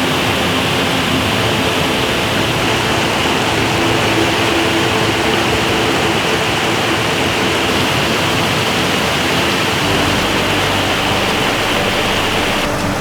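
Steady rush of a creek waterfall spilling down icy rocks, a loud even hiss that thins abruptly near the end.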